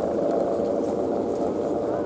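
Steady humming drone of a Balinese kite's guangan (bowstring hummer) vibrating in strong wind.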